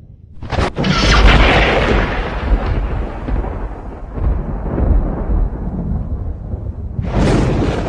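Thunder: a sharp crack about half a second in, followed by a long low rumble that slowly fades, then another crash starting near the end.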